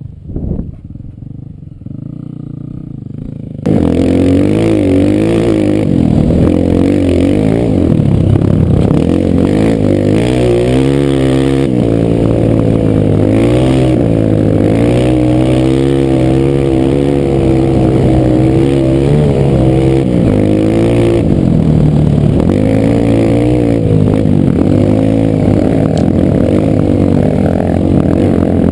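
Honda single-cylinder four-stroke trail motorcycle engine, heard close up while riding. It is quieter for the first few seconds, then comes in loud about four seconds in, its pitch rising and falling again and again as the rider opens and closes the throttle and shifts.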